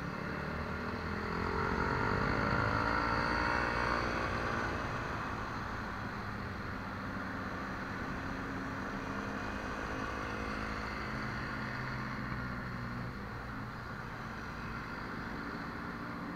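Motor-scooter ride in city traffic: steady engine and road noise, with a louder engine note that rises and then falls in pitch about one to five seconds in.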